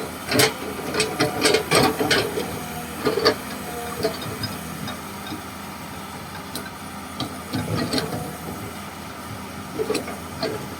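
Komatsu PC200-6 excavator's diesel engine running steadily, with a rapid series of sharp knocks and clunks from the working machine during the first few seconds and a few more later on.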